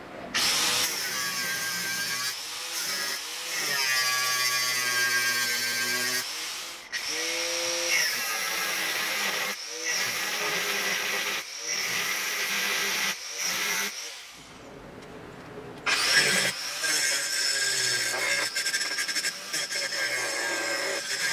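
Angle grinder's abrasive disc grinding a welded mild-steel axe head to shape: a loud, steady high whine and hiss, broken by short dips as the disc lifts off the steel and bites again, with a quieter spell about two-thirds of the way through.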